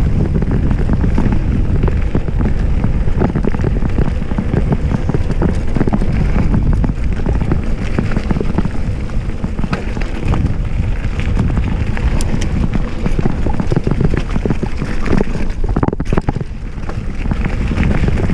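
Polygon Siskiu D5 mountain bike ridden fast down a dirt trail: wind rushing over the camera microphone and tyres rolling over dirt, with a constant rattle of clicks from the bike. The noise briefly drops off about sixteen seconds in.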